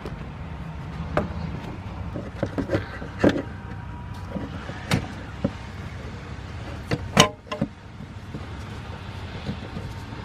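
Scattered clicks and knocks of the oil filter cap with its new filter being worked back into the tight filter housing of a Sprinter's 2.1L four-cylinder diesel. The loudest knock comes about seven seconds in, over a steady low background rumble.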